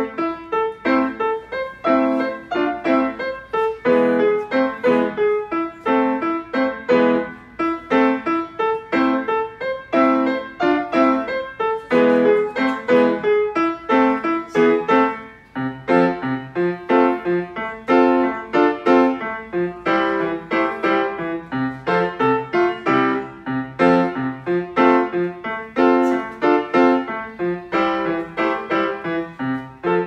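Grand piano played in a fast, continuous run of quick notes and chords. About halfway through there is a brief dip, after which lower bass notes join in.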